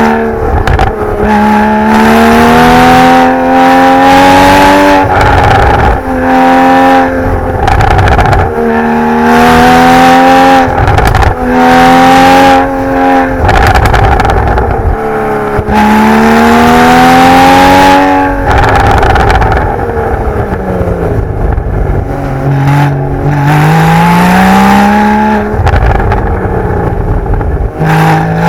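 Porsche 981 Boxster GTS's naturally aspirated 3.4-litre flat-six through its stock sport exhaust in Sport Plus, revving hard through the gears on a winding road. The revs climb again and again, every second or few, with sharp pops and crackles each time the throttle is lifted. Near the end the revs fall away while slowing, then climb again.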